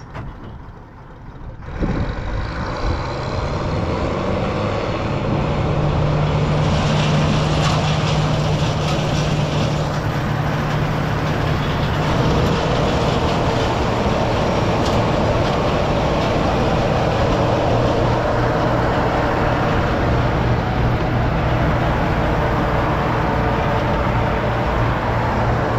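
Diesel engine of harvest machinery running steadily under load, loud and continuous. It comes up sharply about two seconds in, and its note drops a little about halfway through.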